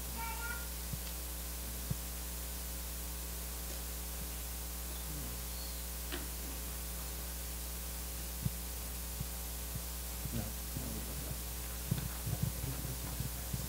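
Steady electrical mains hum from the sound system, with a few faint clicks and knocks, more of them near the end.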